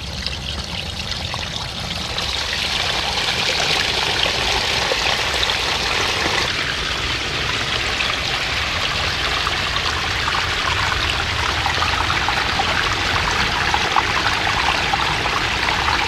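Water from a backyard pond waterfall spilling over stone ledges and splashing into the pond, a steady trickling and splashing whose sound shifts slightly about six and a half seconds in.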